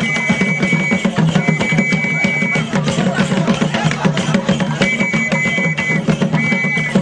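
Traditional dance drumming, fast and dense, with a high steady tone held four times for about a second each over the drums.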